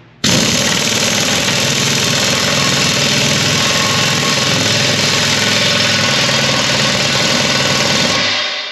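Pneumatic impact wrench hammering steadily as it tightens the blade-mounting nut on a Land Pride RCR1260 rotary cutter. It starts suddenly and winds down near the end as the trigger is let go.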